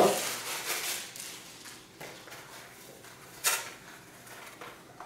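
Packaging being handled and opened by hand: rustling and crinkling, with one sharper crackle about three and a half seconds in.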